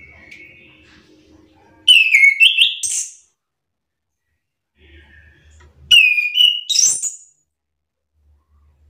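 Chestnut-capped thrush singing two loud phrases about four seconds apart. Each is a quick run of whistled notes that slide down and back up, ending in high, bright notes.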